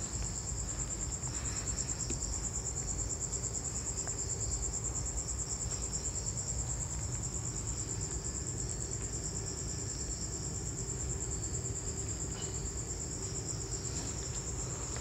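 Night insects trilling continuously in a steady, high, fast-pulsing chorus, with a low rumble underneath.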